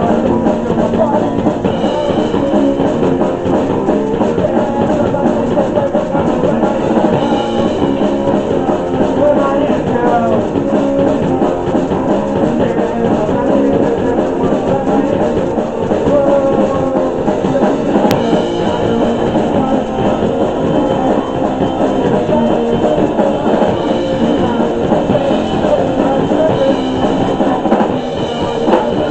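Rock band playing live, loud and steady: a drum kit with amplified electric guitars.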